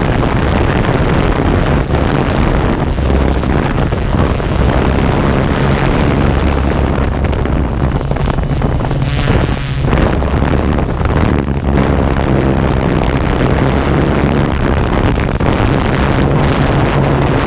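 Quadcopter drone's motors and propellers running with a steady hum, picked up by its own onboard camera, with wind noise over the microphone.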